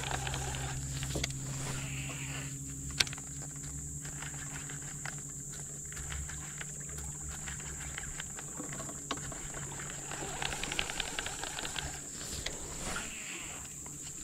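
Outdoor river ambience: a steady high insect drone over a low steady hum, with scattered small ticks and one sharp click about three seconds in.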